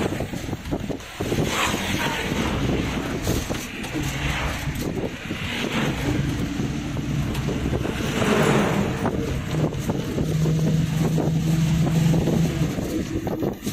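Wind rumbling on the microphone over the running of a road vehicle, with a steady low engine hum through the middle and a few swells of rushing noise.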